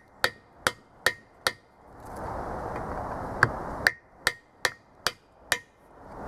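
Hammer striking a freeze plug driver to seat a new expansion plug in a small block Chevy 350's core hole. Four evenly spaced blows, a pause, then six more, each with a short metallic ring.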